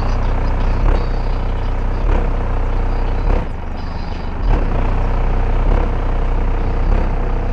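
Bass-heavy music played loud through the Geo Metro's four 12-inch Soundqubed HDS312 subwoofers, heard from outside the car, with deep bass hits a little over once a second.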